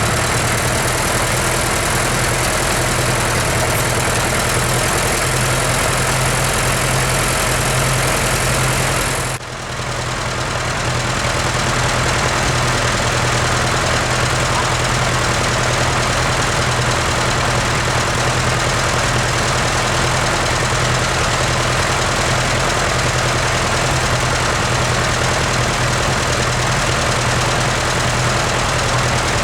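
Tractor engine running steadily with a low, even hum; the sound dips briefly about a third of the way through, then carries on unchanged.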